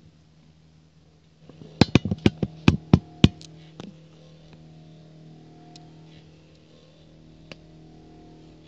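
Stepper motor running with a steady low hum as it winds a thread carrying a hanging glass bottle. About a second and a half in, a quick run of about ten sharp knocks lasts some two seconds.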